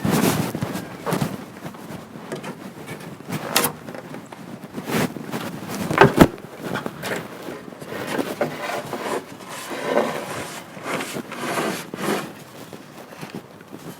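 Irregular knocks and scrapes of a plywood sheet being handled and wedged in place against a wall with a prop stick, with a sharp double knock about six seconds in.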